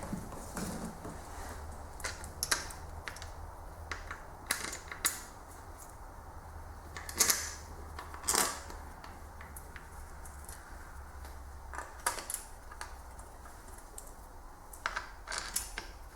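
Irregular metallic clicks and clinks of hand tools and small metal parts being handled on an engine under assembly, two of them louder about seven and eight seconds in, over a low steady hum.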